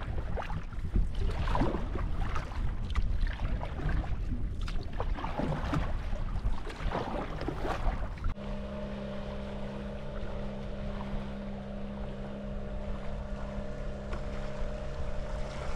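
Wind rumbling on the microphone and water splashing around a canoe on the lake. About halfway through, the sound cuts to a steady motor hum with several fixed pitches that does not rise or fall.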